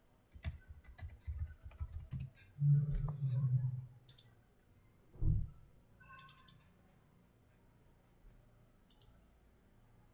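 Typing on a computer keyboard: a quick run of key clicks over the first two and a half seconds. Then a dull thump a little after five seconds in, and a few scattered clicks later.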